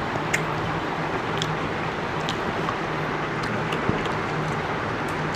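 Steady rushing background noise with a low hum under it, and a few faint light clicks scattered through.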